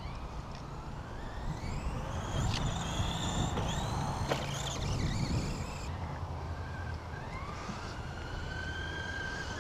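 Electric drive of a Redcat Racing Volcano EPX RC truck whining. The pitch rises several times as the truck accelerates, then holds steady over the last couple of seconds.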